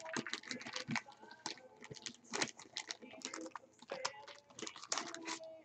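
Irregular light clicks and taps of trading cards and plastic card sleeves being handled.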